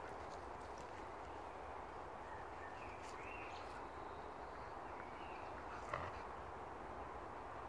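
A steady breeze rustles through the woodland trees, with faint bird chirps about three seconds in. A few soft clicks are heard, and one brief sharp tap comes about six seconds in.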